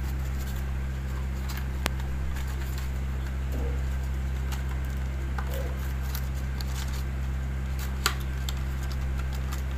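Small white cardboard box being handled and opened by hand: faint scrapes, light taps and two sharper clicks, about two seconds in and near the end, over a steady low hum.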